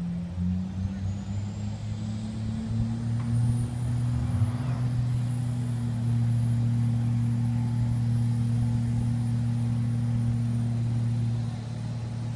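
Distant drag-race engines idling: a steady low drone that steps up slightly in pitch about a second in, then holds.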